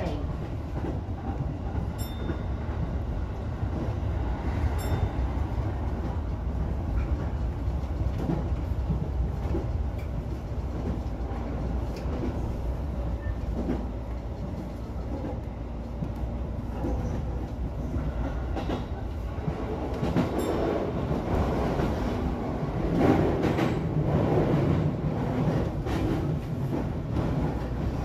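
E233-1000 series electric train running along the track: a steady rumble of wheels on rails, with scattered sharp clicks from the rail joints. The noise grows louder for a couple of seconds a little past three-quarters of the way through.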